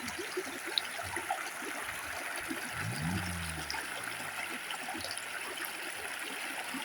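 Water of a small stream running steadily, with small splashes. About three seconds in, a brief low hum rises and then falls in pitch.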